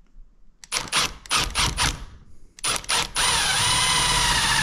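Milwaukee M18 Fuel impact driver driving a FastenMaster HeadLok structural screw through a mantel bracket and shiplap into the wall framing, without a pilot hole. It starts with several short trigger bursts to get the screw started, then from about three seconds in runs steadily, hammering with a motor whine.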